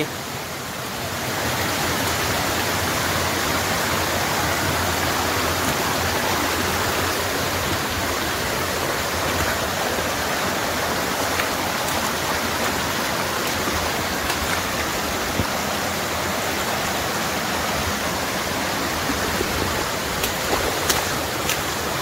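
Rocky forest stream rushing over boulders in small cascades, a steady rush of water that grows louder about a second in.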